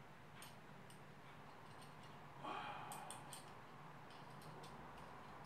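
Faint scattered metal clicks and a brief scrape from a hand-turned T-bar tool being worked into a drilled-out broken M6 bolt in a motorcycle engine casing, over a low steady hum.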